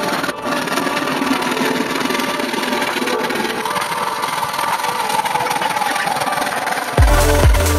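Hand saw cutting through a wood-grain faced board in back-and-forth strokes. Electronic dance music with a heavy bass beat comes in suddenly near the end.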